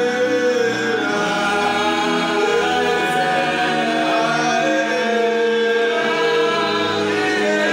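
A small choir singing a Twi gospel song in held harmony, with several voices gliding between sustained notes, accompanied by an electronic keyboard.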